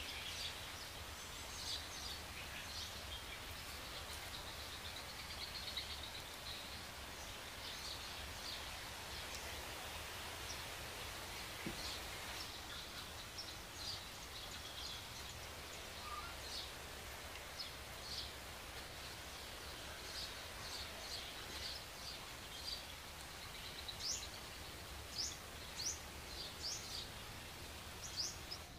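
Birds chirping in short, sharp calls over a steady background hiss. The chirps come more often and louder near the end.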